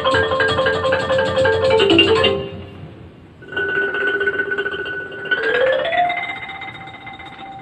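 Background music led by a mallet-percussion instrument: quick runs of notes that break off about two seconds in, then long held notes joined by a short rising run, fading near the end.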